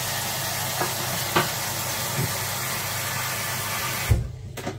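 A steady, even hiss with a few light clicks and taps, cut off abruptly by a knock near the end.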